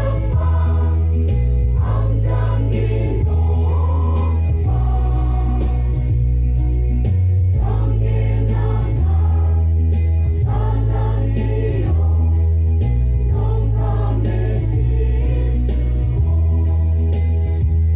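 Church choir of young women singing a gospel song into microphones, with a deep amplified bass line under it that changes note every second or two.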